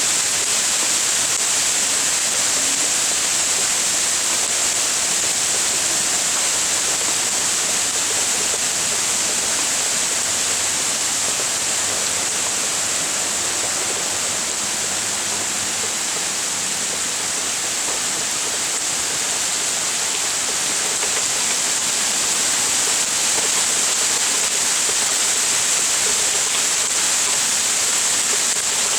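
Hailstorm cloudburst: hail and heavy rain falling in a dense, unbroken hiss, steady throughout.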